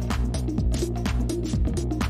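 Background music with a steady beat over sustained low bass notes.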